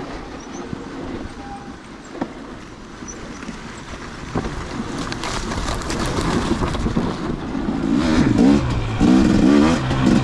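KTM dirt bike engine, running quietly at first with a couple of sharp knocks, then revving up and down under throttle in the second half, its pitch rising and falling.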